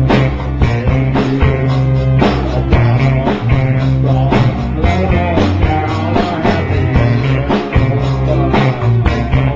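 A rock band playing live, with guitar and a drum kit keeping a steady beat.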